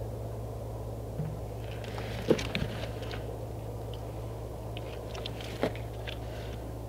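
A 12-week-old pig eating grain feed from a rubber feed pan: scattered crunching and rustling, with sharper clicks about two seconds in and again near six seconds, over a steady low hum.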